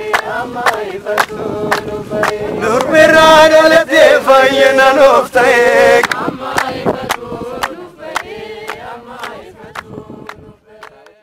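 A group of voices singing an Ethiopian Orthodox hymn to steady hand clapping, about two claps a second. The singing swells to its loudest about three to six seconds in, then fades out near the end.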